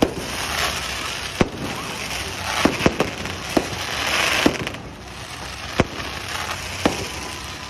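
Aerial fireworks going off: a string of about nine sharp bangs, irregular and sometimes two or three in quick succession, over a dense hiss that swells toward the middle and eases after about four and a half seconds.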